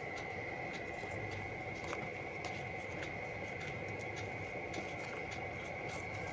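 Foil origami paper crinkling and clicking under the fingers as a folded strip is pressed flat and turned, many small irregular crackles. A steady high tone runs underneath.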